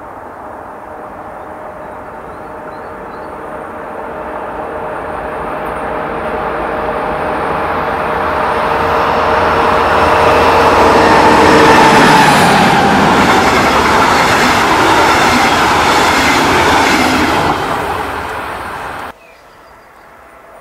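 DB class 218 diesel-hydraulic locomotive hauling a train of double-deck coaches approaches and passes close by. Its diesel engine runs with a steady whine that grows slowly louder, peaks about twelve seconds in, and eases as the coaches roll past. About nineteen seconds in the sound cuts abruptly to a quieter, distant locomotive approaching.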